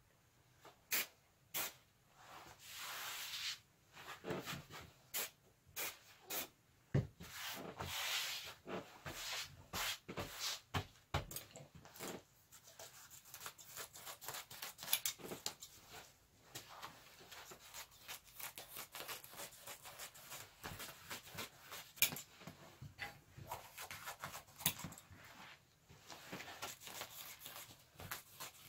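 Aerosol contact adhesive hissing in two short sprays, then scissors snipping steadily through a sheet of upholstery material, with crackling and rustling as the sheet is handled.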